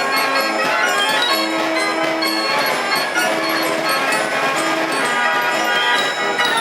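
Wellershaus fairground organ playing a tune, with bright bell-like chimes over held organ notes.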